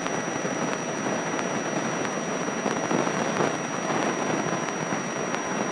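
Steady, even rushing noise of a light airplane's cabin in cruise, engine and airflow heard through the cockpit intercom headset microphone, with a faint high steady whine above it.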